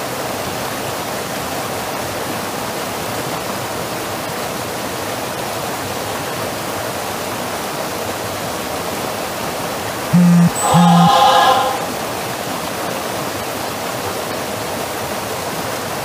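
Steady rush of a creek running over rocks and a small drop. About ten seconds in, a short two-part voice-like hum rises briefly above the water.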